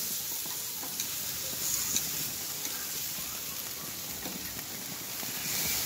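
Striped bass cooking in a wire basket on a hot gas grill, sizzling with a steady hiss and a couple of faint ticks.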